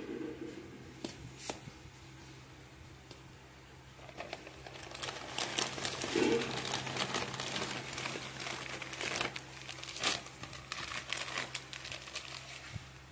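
Thin plastic carrier bag crinkling and rustling as a hand rummages inside it, pulling out packaged groceries; quiet at first, then dense crinkling from about four seconds in until near the end.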